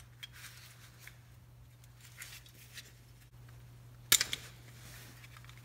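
Old drum brake shoes, springs and link being pulled apart by hand: faint metallic clicks and rattles, with a sharp metal clink about four seconds in, over a steady low hum.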